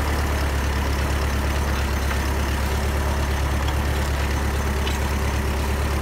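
Small vineyard tractor's engine running steadily as it pulls a hand-guided plough through the soil between young vines, a constant low drone.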